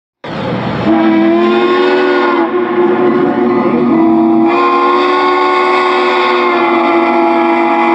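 Steam locomotive chime whistle blowing one long, steady blast, several tones sounding together as a chord.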